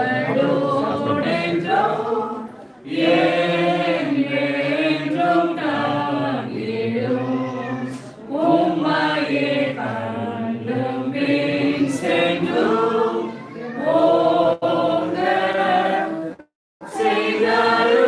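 A group of people singing together without instruments, in sung phrases with short breaks between them.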